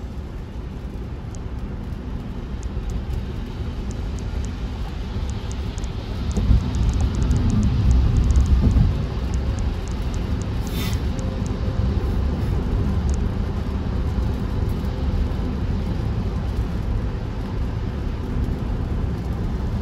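Tesla car driving with a steady low road and tyre rumble, which swells louder for a couple of seconds about a third of the way in. Faint scattered light ticks and one short click sit over it.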